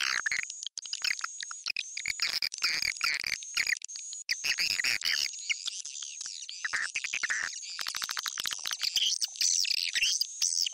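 Swiftlet call recording played as a lure for swiftlets: dense, high twittering chirps that overlap one another. From about eight seconds in, fast ticking runs under the chirps.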